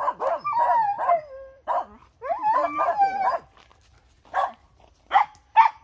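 Dogs, a Finnish Spitz among them, barking at a squirrel up a tree: the hunting bark at treed game. A quick run of high, yelping barks with some whining slides, then a few single sharp barks near the end.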